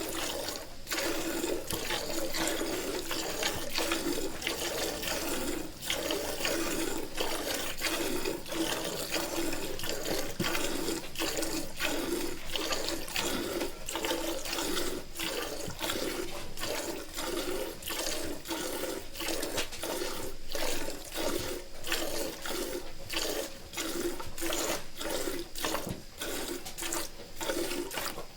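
Cow being milked by hand: rapid, regular squirts of milk streaming into a pail.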